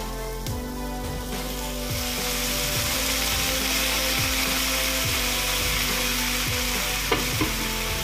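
Water splashed from a kettle into a hot frying pan of green beans, setting off a loud, steady sizzle that swells up about two seconds in and keeps going. A single light knock comes near the end.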